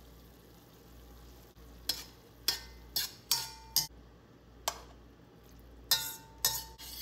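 A utensil stirring cabbage and potatoes in a stainless steel pan, knocking against the pan about nine times with sharp clanks, a few ringing briefly. A faint sizzle from the pan is under it.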